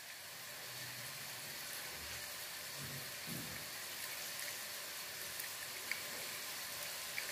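Onions frying in oil on medium-to-high flame, a faint steady sizzle.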